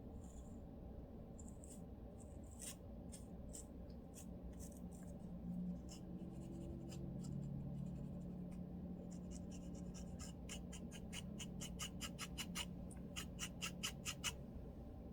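A lice comb scratching a dry, flaky scalp, scraping in short strokes. The strokes are scattered at first, then come in a fast even run of about four to five a second near the end.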